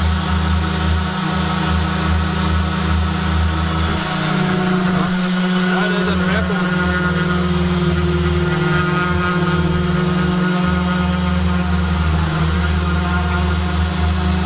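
Two Makita random orbital sanders, one corded and one cordless, running together and sanding plywood with a steady motor hum and whirr. The lowest part of the hum breaks off for about a second around five seconds in, then resumes.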